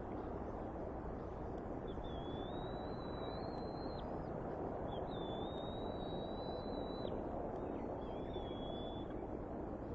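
Bald eaglets giving thin, high, drawn-out begging whines: three long steady whistles, the last one shorter, from hungry nestlings waiting to be fed. Underneath is a steady outdoor rush.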